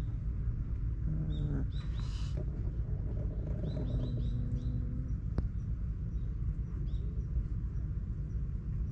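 Small birds chirping in short repeated high notes, in a few clusters, over a steady low rumble.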